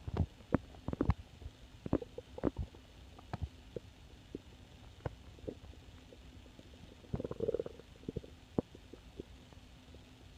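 An empty, hungry stomach growling: a string of short gurgles and pops, thickest in the first few seconds, then sparser, with one longer gurgle about seven seconds in.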